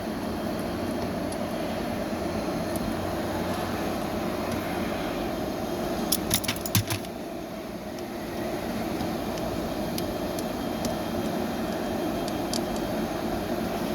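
Steady mechanical background drone, with a quick cluster of sharp metallic clinks about six to seven seconds in and a few faint ticks, like hand tools and small metal parts being handled.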